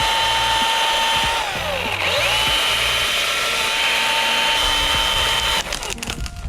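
Battery-powered Milwaukee chainsaw running at full speed with a high, even whine, cutting a limb piece. It slows sharply about two seconds in and winds straight back up, then stops near the end, followed by a few sharp knocks.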